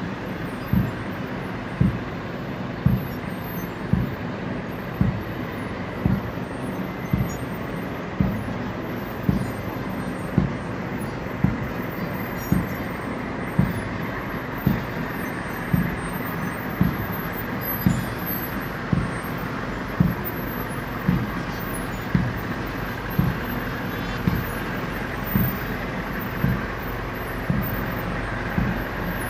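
A bass drum beating a slow, even funeral-march tempo, about one low thump a second, over a steady outdoor rumble.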